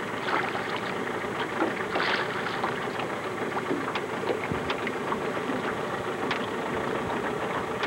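Steady wind and lapping water around a small aluminum fishing boat, with scattered light ticks and small splashes as a small fish is drawn up to the boat's side.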